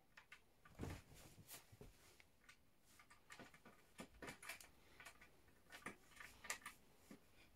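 Faint, irregular clicks and taps of cardboard jigsaw puzzle pieces being handled and sorted on a table.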